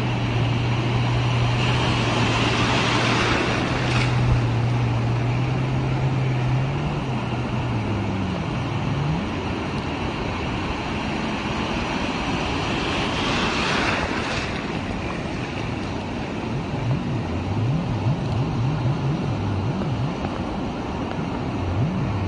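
Jet ski engine running at a steady pitch, then revving up and down again and again through the second half, over a constant rush of wind and water. The rush swells louder twice.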